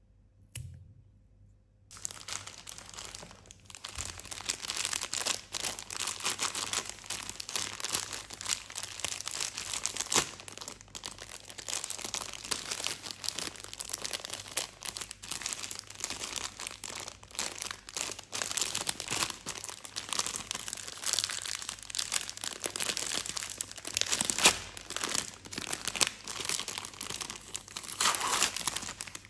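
Crinkly plastic multipack wrapper of Nestlé Aero bars being handled, starting about two seconds in, and being pulled apart to open it near the end.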